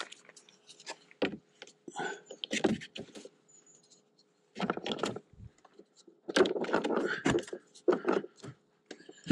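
Battery charger leads, connector and crocodile clamps rattling and clicking as they are handled, in short irregular bursts with a brief pause about four seconds in.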